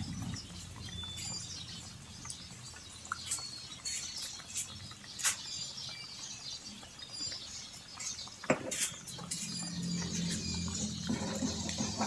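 Pork and vegetable stew in tomato broth boiling in a pot: steady bubbling with many small pops, and a few sharp clicks.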